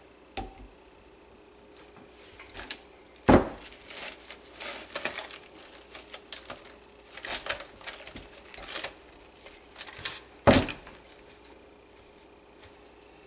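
Plastic cling wrap crinkling and rustling as it is pulled and stretched over a crock pot, with two sharp knocks, one about three seconds in and one near the end.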